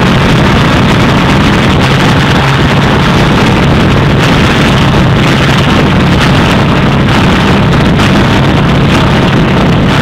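Ford Mondeo engine running steadily with a misfire, heard loud from over the open engine bay.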